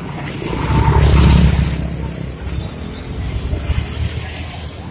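A motor vehicle passing close by: engine and road noise swell to a peak about a second in, then fade over the next second, over steady traffic background.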